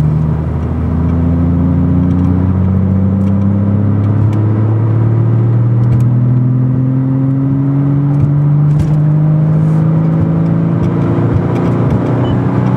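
Porsche Cayman S with a custom exhaust accelerating at full throttle in fifth gear from about 1,000 rpm, heard from inside the cabin; the engine note climbs slowly and steadily. It pulls through quietly, with no perceivable resonance or drone.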